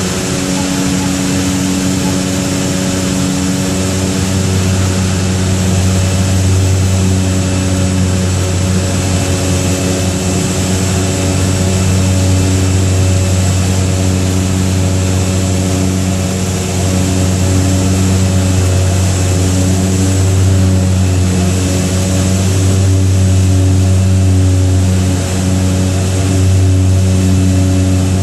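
Beechcraft 99's twin Pratt & Whitney PT6A turboprop engines and propellers droning steadily on final approach, heard from inside the cabin: a deep propeller hum over a turbine and airflow hiss, wavering slowly in places.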